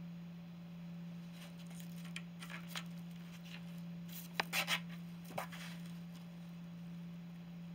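A kitten chewing and pulling at a cardboard box and a frayed sisal rope, making short crackling scrapes in two bunches, the loudest about four and a half seconds in.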